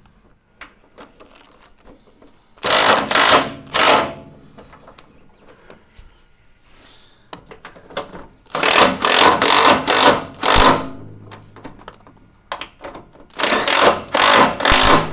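Impact wrench tightening the rear step's mounting bolts into the vehicle chassis. It comes in three loud bursts of rapid hammering, about 3, 9 and 14 seconds in, each one to two seconds long and made up of a few short runs.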